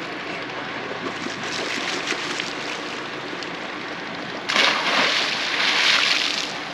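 Seawater splashing and sloshing under a steady background wash; about four and a half seconds in, a sudden loud rush of splashing lasts about two seconds.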